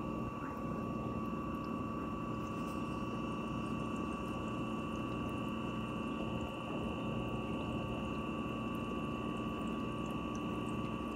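Aquarium pump running: an even hum with a couple of steady whining tones over a wash of water noise.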